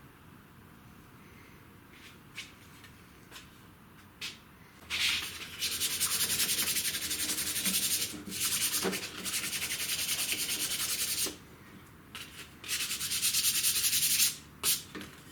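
Scratchy rubbing noise, like something being rubbed or sanded, in three spells of a few seconds each, starting about five seconds in, with a few soft clicks before and between.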